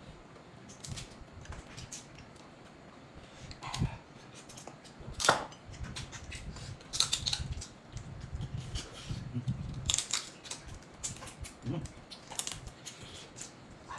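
Cooked crab shells and legs being cracked and pulled apart by hand, a string of sharp cracks and crunches, the loudest about five seconds in, with eating sounds between them.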